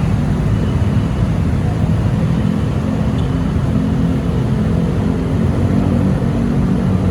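Diesel bus engine running steadily at low speed, a low, even rumble.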